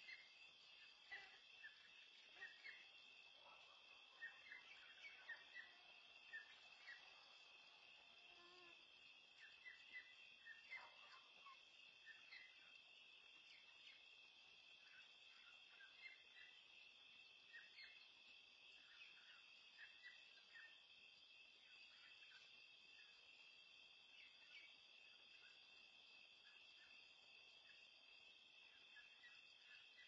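Faint chorus of night insects: a steady, high-pitched trilling. Scattered short faint sounds come over it, most in the first twelve seconds.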